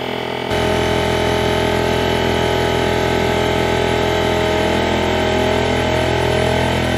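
Bostitch pancake air compressor's motor and pump running steadily, refilling the tank toward its 150 psi cut-out. The sound gets louder about half a second in.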